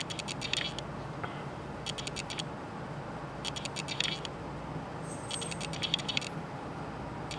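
Fingers handling and turning a silver coin, giving four short bursts of rapid scratchy clicking, about one every second and a half, over a faint steady low hum.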